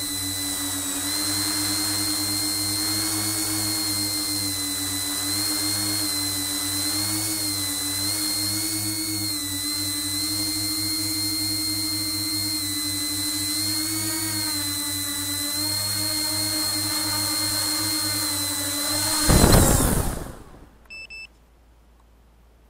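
A tricopter's three brushless motors and Graupner 9x5 tri-blade propellers whining steadily in flight, the pitch wavering slightly with throttle. Near the end a brief, loud rush of noise comes, the motor sound stops, and two short electronic beeps follow.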